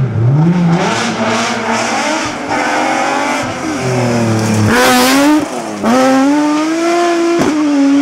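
Nissan 370Z rally car's V6 engine at full throttle, its revs repeatedly climbing and then dropping as it is driven hard past at close range. About five seconds in there is a loud, hissing flare over the engine note.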